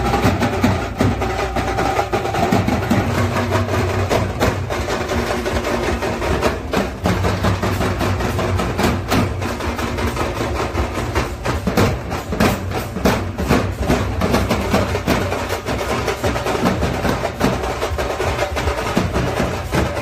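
Procession drum band playing live: large steel-shelled drums and smaller side drums beaten with sticks in a fast, dense, continuous rhythm.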